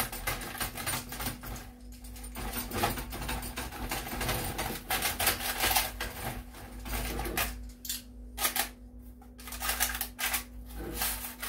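A freshly baked Flammkuchen being cut: a dense run of crisp crackles and scrapes as the crust breaks, thinning to scattered clicks in the last few seconds.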